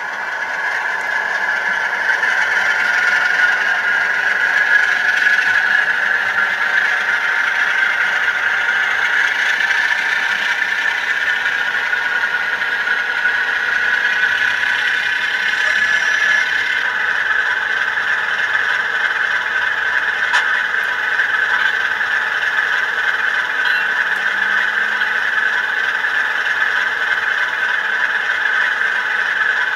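Bachmann model Class 47 diesel locomotive running slowly along the track, giving a steady squealing whine from its motor and wheels.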